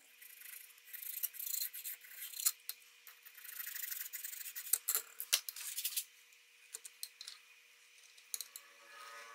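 Steel scribe scratching lines into layout fluid on a knife blade, with the blade and scribing gauge sliding on a flat plate: light scraping strokes in stretches, with a few sharp clicks.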